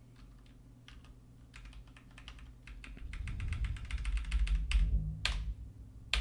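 Typing on a computer keyboard: scattered keystrokes quicken into a fast run, followed by two louder single key strikes near the end.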